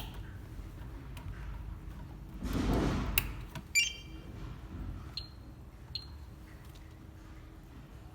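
Clicks and rustling handling noise as a Cat6 cable is connected to a Fluke cable tester, then a few short, high electronic beeps from the tester.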